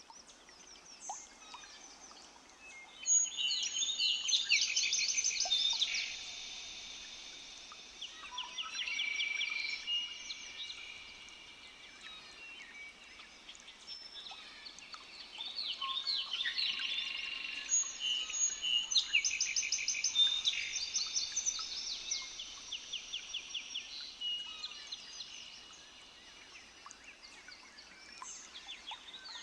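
Several birds singing at once, a chorus of rapid trills and whistled notes that swells twice.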